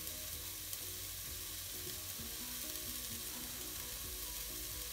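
Diced onion sizzling steadily in oil in a hot enamelled cast-iron casserole, sweating with salt to soften without colouring. Soft background music plays along.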